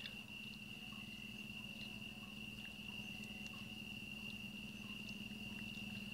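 Faint, steady high-pitched chirring of night insects, like crickets, over a low steady hum, with scattered light clicks.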